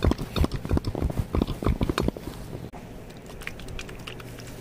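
Quick, irregular crunchy clicks and taps close to the microphone, ASMR-style, thinning out after about two seconds into sparse faint ticks over a low hum.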